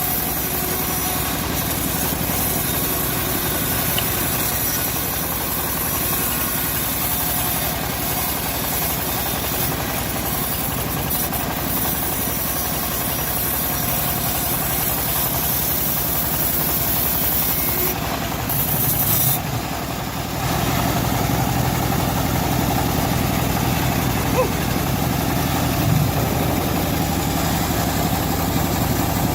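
Engine of a homemade bandsaw sawmill running steadily. About two-thirds of the way through it dips briefly, then carries on a little louder.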